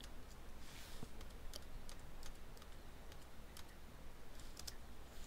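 A few faint, scattered clicks from the computer's mouse and keyboard, about six spread out, over a low steady hum.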